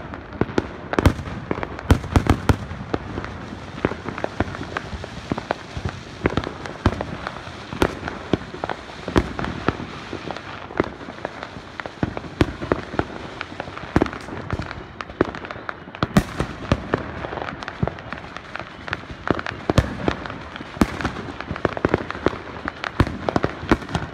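Many fireworks going off at once: a continuous run of overlapping sharp bangs and crackles, several a second, without a pause.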